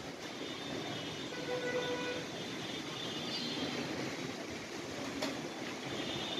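Strong wind blowing steadily ahead of a storm, a continuous rushing noise. A brief pitched tone sounds about one and a half seconds in, and thin high whistling tones come and go.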